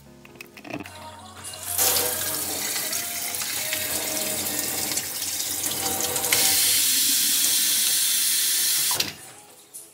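Kitchen faucet running into a glass vase at a stainless-steel sink. It starts on the pull-out head's spray setting. About six seconds in it changes to a single, louder stream filling the vase. The water cuts off suddenly near the end.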